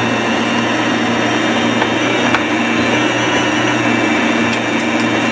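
Electric mixer running steadily, beating cake batter as the eggs are added one at a time.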